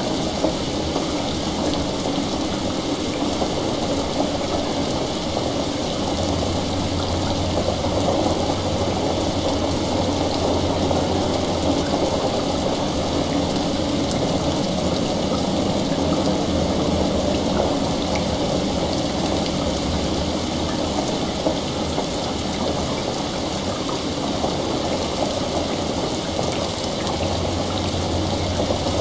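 Steady heavy rain layered with a bubbling, stream-like trickle of water. A low distant rumble swells about six seconds in and again near the end.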